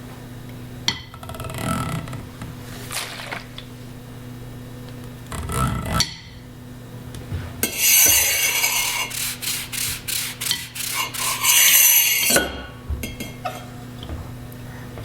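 Hand-made sound effects: objects rubbed and scraped. A loud rasping scrape comes about eight seconds in, followed by a quick run of about seven short strokes and another loud scrape, with a few small ticks near the end.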